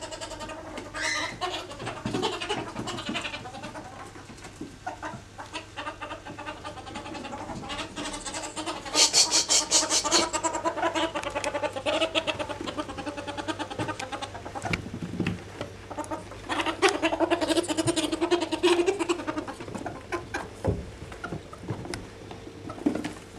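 Two ferrets wrestling and giving rapid, chuckling clucks (dooking), in repeated runs. The runs are louder about nine seconds in and again around seventeen seconds, with scattered light scuffling clicks between them.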